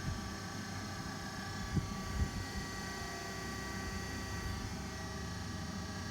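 DoAll surface grinder running, a steady machine hum with several constant whining tones, and two short low knocks about two seconds in.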